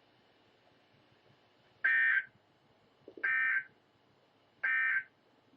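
Emergency Alert System end-of-message data bursts on NOAA Weather Radio: three identical short digital screeches about 1.4 seconds apart, starting about two seconds in over a low hiss. They mark the close of the Required Monthly Test.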